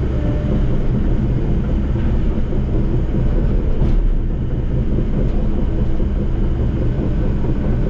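Diesel engine of a tracked earthmoving machine running steadily, with a steady low drone.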